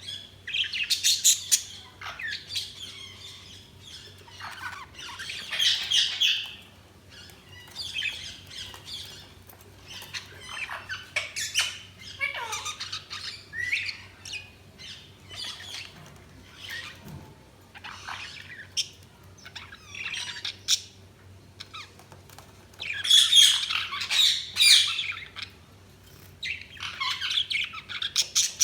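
Budgies chirping and chattering in irregular bouts of high squawky chirps, loudest about a second in, around six seconds and again past twenty seconds. A faint steady hum runs underneath.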